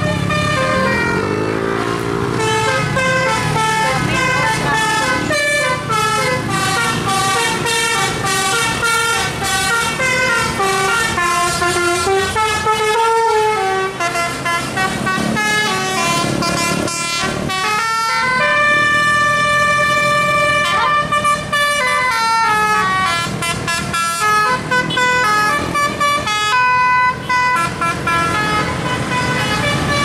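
Tour coach's telolet multi-tone musical air horn playing a fast melody, its notes stepping up and down in quick runs, with a few long held chords around the middle.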